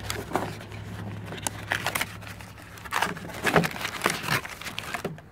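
A cardboard box flap is opened and the foil anti-static bags of LED bulbs inside are rustled by hand, making irregular crinkles and small knocks.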